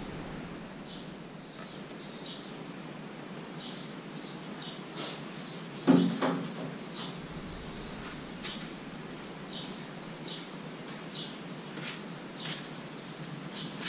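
Small birds chirping over and over in short calls, against steady outdoor ambience. About six seconds in there is a single dull thump, the loudest sound, and a few light clicks follow later.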